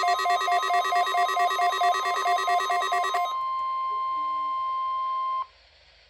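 Weather alert radios sounding their alarm for a NOAA Weather Radio required weekly test: a loud, rapidly pulsing electronic beeping of several tones for about three seconds, then a single steady tone that cuts off suddenly over five seconds in.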